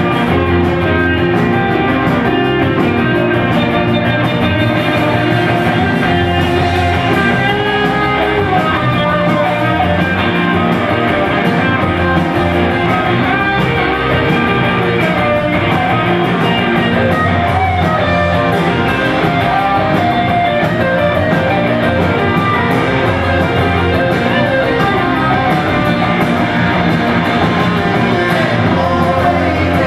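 Live rock band playing an instrumental stretch: electric guitars over a drum kit with a steady beat.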